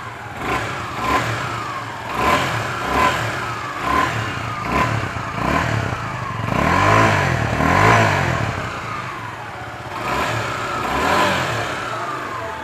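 Suzuki Gixxer SF 250's 250 cc single-cylinder four-stroke oil-cooled engine revved with repeated throttle blips, each rev rising and then falling back, the biggest two about seven and eight seconds in.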